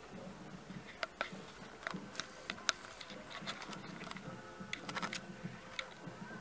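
Raindrops tapping irregularly on a car's glass and body, heard from inside the car over a faint low hum.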